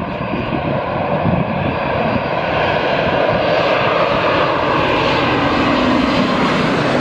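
Boeing 787 twin jet engines on final approach, passing low overhead: a loud, steady jet rush with a faint whine in it, growing louder over the first few seconds as the airliner comes over.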